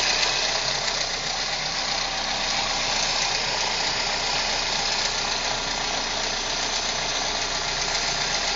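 Toyota 1NZ 1.5-litre four-cylinder petrol engine idling with a steady, dense timing chain rattle, the sign of a chain due for replacement. The engine is still cold; the rattle fades once it warms up.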